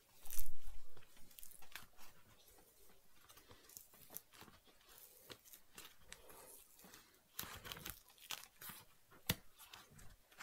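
Thick foam layer being torn and peeled by hand away from the glued inside of a cut-open Lonsdale trainer: intermittent crackling, tearing of foam and adhesive. There is a dull bump in the first second and a livelier run of crackles with a sharp snap near the end.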